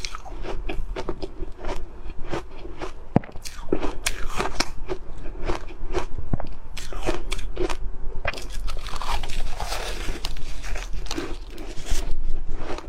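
Ice being bitten and chewed close to the microphone: a rapid run of sharp crunches and cracks.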